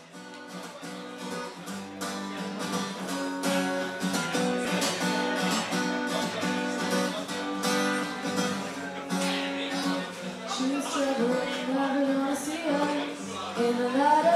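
Acoustic guitar playing a strummed chord intro, fading in over the first couple of seconds.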